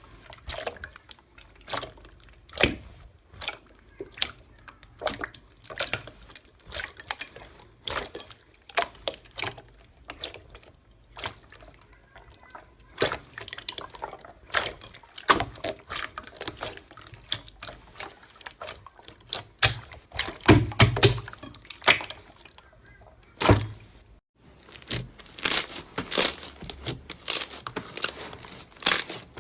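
Slime being worked by hand, making irregular wet, sticky pops and clicks, one or two a second, which come thicker and faster near the end.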